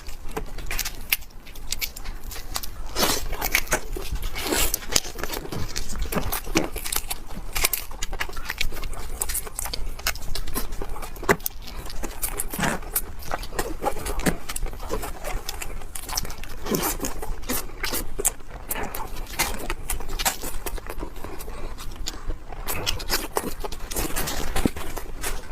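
Close-up eating: fast chewing and mouth noises, with utensils scraping and clicking against a food tray in a quick, irregular run of small clicks and crackles.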